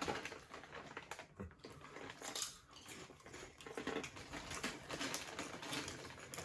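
Light, crisp shrimp chips being crunched while eating: a run of small, irregular crackles.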